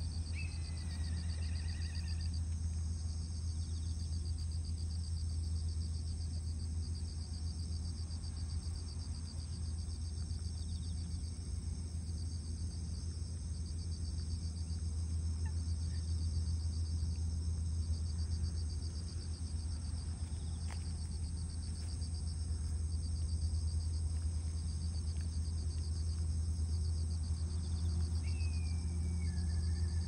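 Insects trilling steadily in a high, fast-pulsing drone over a steady low hum. A short falling high call sounds about a second in and again near the end.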